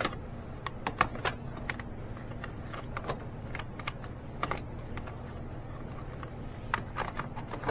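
Irregular light metallic clicks and clinks of a wrench and socket working a starter motor mounting bolt loose, over a steady low hum.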